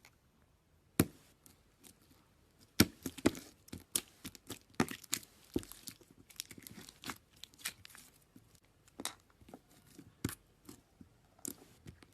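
Slime being squished and stretched by hand, making irregular sticky crackles and pops. The crackles come in quick clusters in the middle and thin out towards the end.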